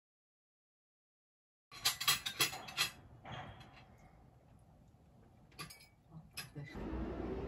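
Silence, then a quick run of sharp tableware clinks, like china and cutlery knocking together. Quiet room tone follows, with a couple of lighter clicks, and a low steady room hum comes up near the end.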